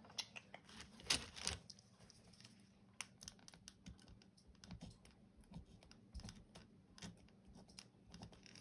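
Faint, irregular light taps and clicks of stationery being handled on a paper planner, with a cluster about a second in and scattered single clicks after.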